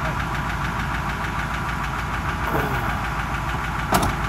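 Oldsmobile diesel engine idling with a steady knocking clatter, and a sharp click near the end.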